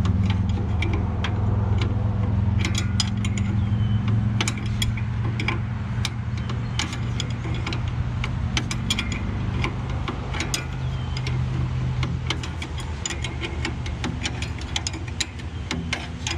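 John Deere skidder's diesel engine idling steadily, with many irregular sharp metallic clicks and taps from a wrench being worked on the winch brake adjustment.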